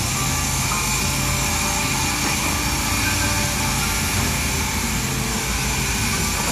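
Petrol cut-off saw cutting into concrete or paving with a steady high-pitched whine, over the low hum of an engine.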